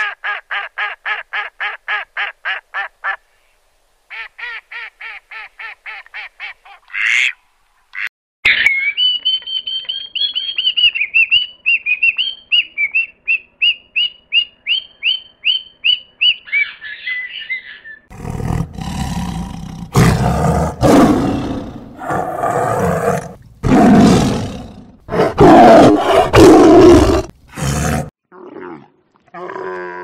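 Runs of short, rapid duck calls, then a long series of high repeated bird calls. Loudest of all, over the last ten seconds, a dromedary camel calls in several long, harsh, loud bouts.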